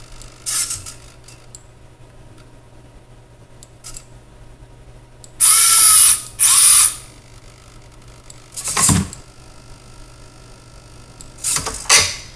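Small geared electric motors of a 3D-printed tracked robot tank whining in short bursts as it moves, with plastic gears and tracks rattling. The two longest and loudest bursts come a little over halfway through, with shorter ones near the start, around nine seconds in and near the end.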